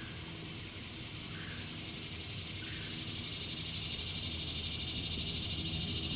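Outdoor insect chorus: a steady high buzz that grows louder from about halfway through, over a low steady hum. A few faint short chirps come in the first few seconds.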